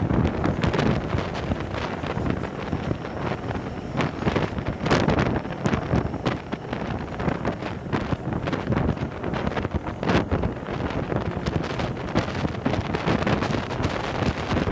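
Wind buffeting the microphone held out of a moving railway carriage window, over the steady rumble of the train running on the track, with a few brief knocks.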